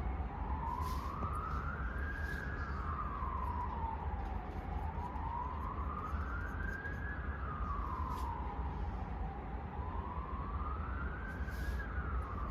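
Emergency vehicle siren wailing, its pitch rising and falling slowly, about one cycle every four and a half seconds, over a steady low rumble.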